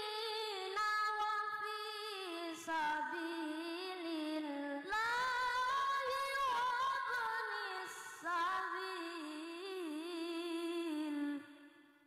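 A young boy reciting the Quran in melodic tilawah style into a microphone: long, ornamented held phrases in a high voice, with short breaths between them. The last phrase ends about a second before the end and fades out.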